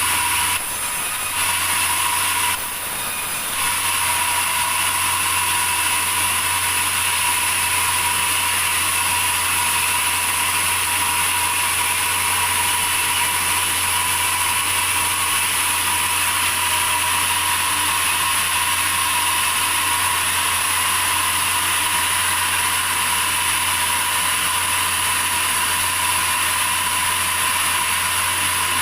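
Sawmill machinery running with a steady mechanical whine. It changes briefly twice in the first few seconds, then holds even.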